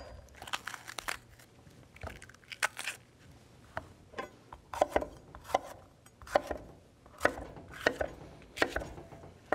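Chef's knife cutting a red bell pepper into chunks on a wooden chopping board: irregular sharp taps of the blade striking the board, coming faster and louder in the second half.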